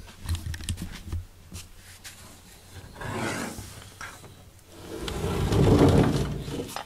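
Handling noise as a ceramic cat food bowl holding dry kibble is picked up and carried: a few soft knocks, then rubbing that swells loudest about five seconds in.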